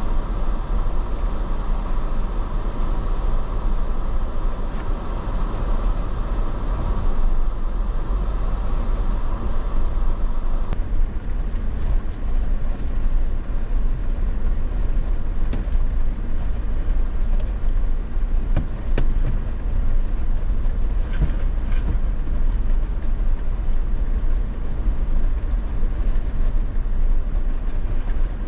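Off-road vehicle driving on a rough dirt trail: a steady deep rumble with scattered knocks and rattles. A higher hum in the mix stops suddenly about a third of the way in.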